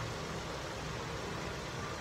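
Steady background noise: an even hiss with a low hum underneath.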